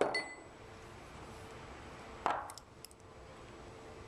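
Stainless steel sampler parts being handled and set down on a tabletop. There is a clink with a brief metallic ring at the start, then a knock with no ring about two seconds in, followed by a few light ticks.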